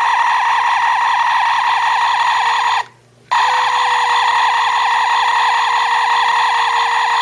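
Star Trek Type II phaser prop's sound module playing a steady, siren-like electronic firing whine with a fast flutter. It cuts out for about half a second roughly three seconds in, then starts again, as the beam is fired a second time.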